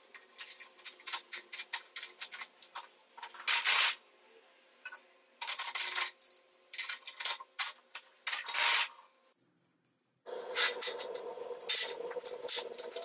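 Homemade bolted steel-plate lever clamp being worked by hand: a run of sharp metallic clicks and clinks from its pivots and jaws, with a few short metal-on-metal scrapes as it closes on steel tube on a steel table. The clatter stops briefly about two-thirds through, then resumes.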